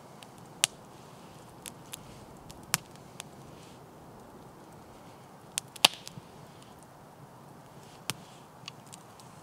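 Campfire crackling, with scattered sharp pops and snaps at irregular moments over a faint steady hiss; the loudest pop comes a little before six seconds in.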